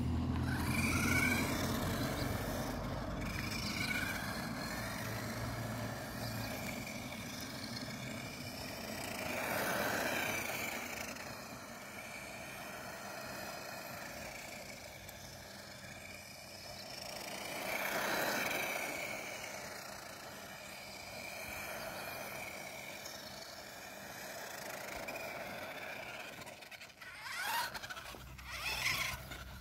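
Electric 1/18-scale HBX Hailstorm RC truggy driving, its 380 brushed motor and gears whining, the pitch rising and falling with the throttle. The sound swells twice, about ten and eighteen seconds in, and near the end turns into a quick uneven rattle.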